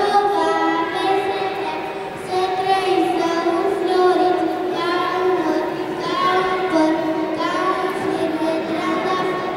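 A group of children singing a song together in unison, a simple melody of long held notes.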